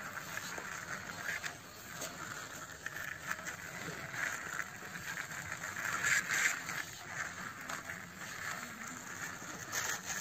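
Small plastic wheels of a toy tricycle rolling and rattling over rough concrete as it is pushed by hand, a steady scraping noise that swells a little about six seconds in.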